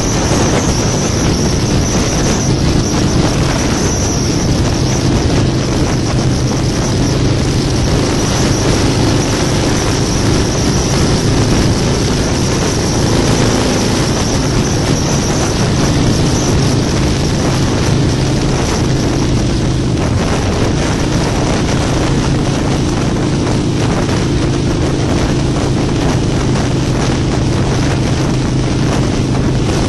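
Harley-Davidson Low Rider's V-twin engine running steadily while riding at speed, with a constant rush of wind and road noise over the frame-mounted microphone.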